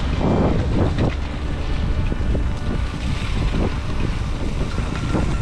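Wind buffeting the microphone of a camera riding on a mountain bike, over the steady rumble of the tyres on a dirt trail, with small knocks and rattles from the bike.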